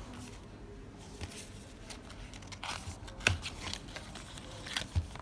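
Hands unpacking a puzzle cube's packaging: crinkling and rustling with scattered light clicks and taps, the sharpest click about three seconds in and another near the end.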